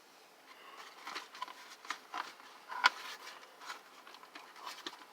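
Hands working on an opened space heater, starting about a second in: irregular light clicks, taps and rustles as parts are handled and hair and dust are pulled out.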